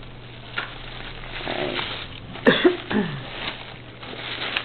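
Tissue paper and plastic wrapping rustling and crinkling as a package is unwrapped by hand. About two and a half seconds in comes a short, louder voice-like sound that falls in pitch.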